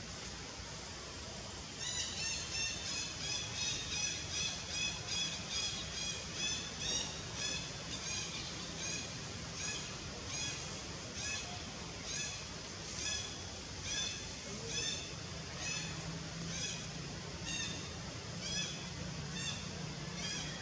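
A long, even series of short, high-pitched calls, a little over two a second, starting about two seconds in and gradually fading, from an animal in the forest, over a steady background hiss.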